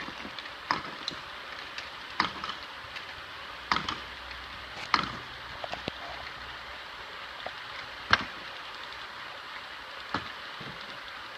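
Modular plastic chain-belt conveyor running with two belts side by side moving in opposite directions, a steady hiss under irregular sharp clicks as the small jars riding on it knock against each other and the conveyor's rails, roughly one knock every second or two.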